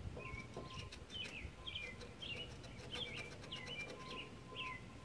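A bird singing: a faint run of short chirping notes, two or three a second.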